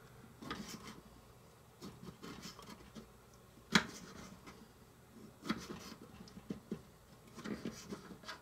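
Small knife slicing a cherry tomato on a small wooden cutting board: quiet, scattered taps and scrapes of the blade against the wood, the sharpest tap a little under four seconds in.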